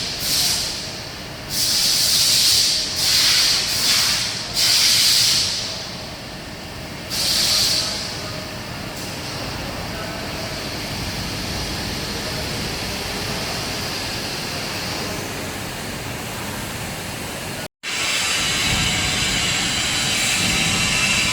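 Ice-making machinery hissing in about six short bursts, each half a second to a second and a half long, over the first eight seconds. After that it runs as a steady, even noise, which cuts out for an instant near the end and resumes as a somewhat brighter hiss.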